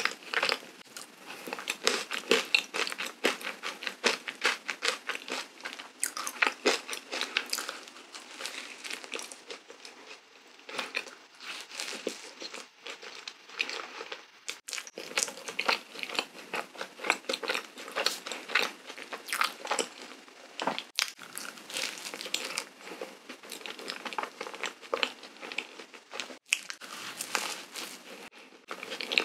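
Close-up eating sounds of cream-filled donuts with whipped cream: soft biting and wet chewing, made up of many small sticky mouth clicks. The sound drops out briefly a few times.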